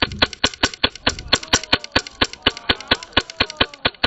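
HPA airsoft gun firing full-auto, a long even string of sharp shots about seven a second that cuts off suddenly near the end.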